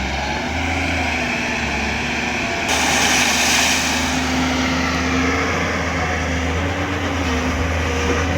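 JCB 205 LC excavator's diesel engine running steadily, with a whine that drifts in pitch as the hydraulics work and a brief loud hiss about three seconds in.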